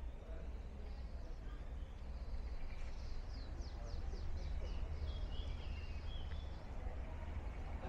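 Small songbirds singing and chirping, with a quick run of falling high notes about three to five seconds in, over a steady low background rumble.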